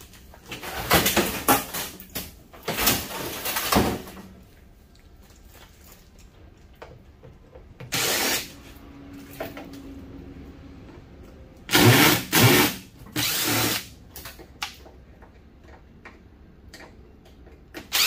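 Cordless drill-driver running in several short bursts of about a second each, with pauses between, on the screws of a microwave oven's sheet-metal casing.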